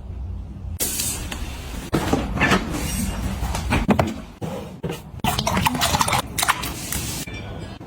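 Household items being handled and set down: a busy run of clicks, knocks and rustles starting about a second in, over a steady low hum.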